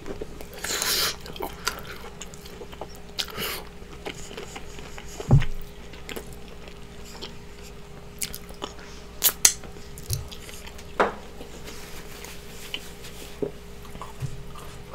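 Close-miked eating sounds: chewing a mouthful of seafood, with scattered wet mouth clicks and a low thump about five seconds in. A faint steady hum sits underneath.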